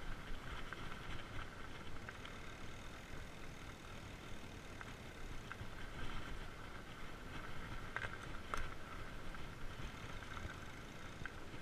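Fat bike rolling along a dirt trail: steady tyre noise and low rumble, with scattered light rattles and two sharper knocks about eight seconds in.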